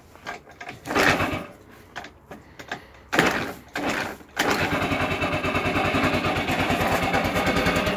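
Cold start of a Baotian Rebel's 72cc GY6 four-stroke scooter engine at about −10 °C: two short kick-start strokes, then about four and a half seconds in it catches and runs steadily at a fast idle, raised because the automatic choke is stuck on.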